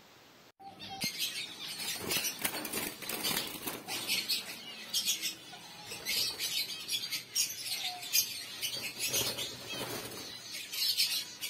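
Diamond doves flapping their wings in a wire cage as a hand reaches in and catches one. The flapping is rapid and irregular, with some rattling, and starts about half a second in.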